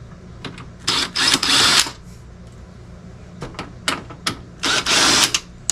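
Cordless drill running in two short bursts, each about a second long, backing screws out of a dehumidifier's plastic case, with sharp clicks and taps of the plastic housing between them.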